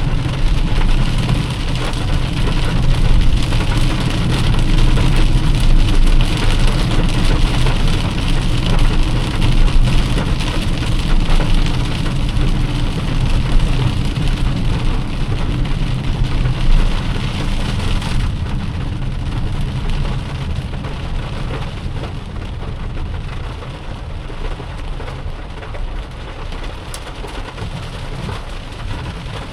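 Heavy rain falling on a moving car, over a steady low rumble of road and engine noise. About two-thirds of the way through the rain hiss turns duller and the whole gets gradually quieter.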